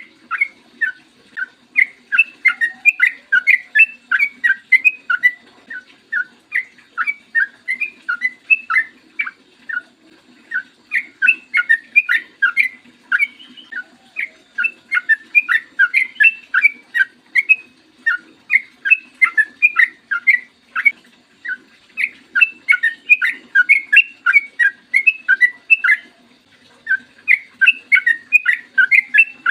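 Sooty-headed bulbul (trucukan) singing: quick runs of short chirping notes in phrases of several seconds, broken by brief pauses about every four seconds.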